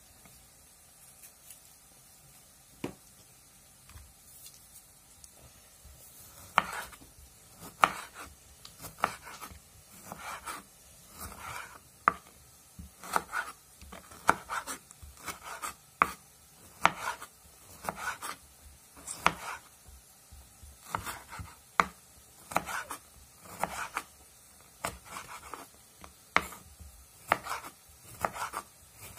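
Kitchen knife slicing tomatoes on a bamboo cutting board: a regular series of knife strokes, each cutting through the soft tomato and ending in a tap on the wood, about one to two a second. The first few seconds hold only a few faint taps before the steady slicing begins about six seconds in.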